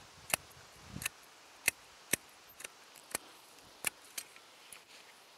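Hand pruning shears snipping through western thuja shoots: a string of about nine sharp, separate snips at an uneven pace.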